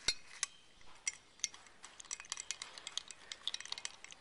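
A metal spoon stirring heated liquid soft-bait plastic in a glass measuring cup, clinking and scraping against the glass. The light clinks come sparsely at first and quicker in the second half.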